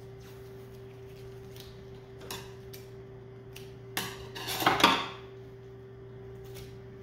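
Roll of electrical tape being handled and set down on a hard surface: a few light taps, then a sharp knock about four seconds in and a short clatter just after.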